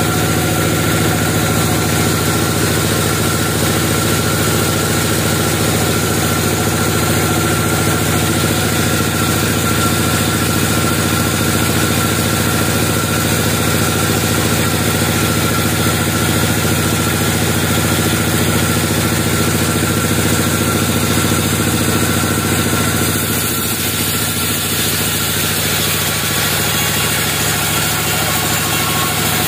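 Engine-driven band sawmill running steadily with an even engine drone. A little over 20 seconds in, the sound dips slightly and shifts as the blade starts into a rough-barked log.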